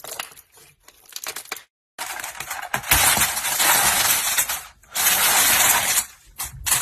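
Slime being handled and squeezed by hand, making a crackling sound: a few scattered clicks at first, then long, dense stretches of crackle from about two seconds in, with short breaks between them.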